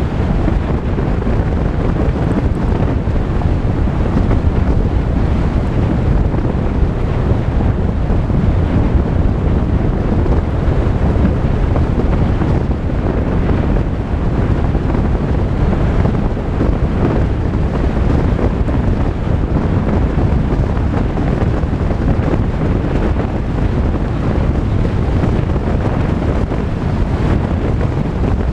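Volkswagen Tiguan driving along a dirt road: a steady low rumble of tyre and road noise, with wind.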